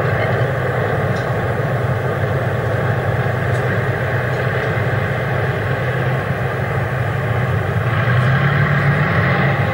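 Tank engine running with a steady, unbroken rumble.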